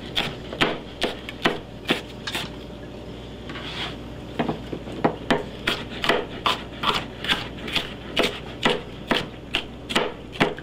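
Kitchen knife dicing a red bell pepper on a cutting board: regular knife strikes through the pepper onto the board, about two to three a second, with a pause of about two seconds early on before the chopping resumes.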